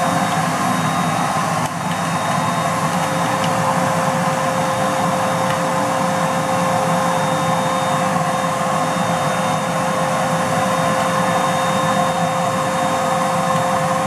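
Household vacuum cleaner running steadily, its motor giving a constant whine, as its hose nozzle sucks dust out of the sensors of an opened robot vacuum.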